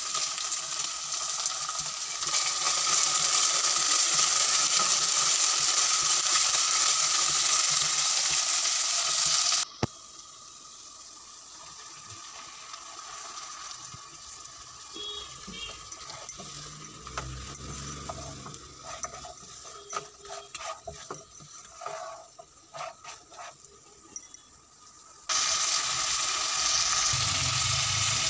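Onions and tomato sizzling loudly in oil in a non-stick pot. About ten seconds in the sizzle stops abruptly, leaving a quieter stretch of scattered clicks and knocks from a silicone spatula stirring mutton bones and spices against the pan. The loud sizzling returns suddenly near the end.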